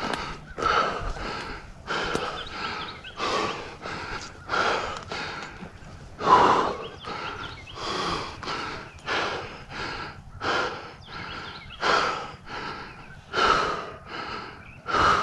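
A person breathing hard and rhythmically close to the microphone, a rough breath roughly every second.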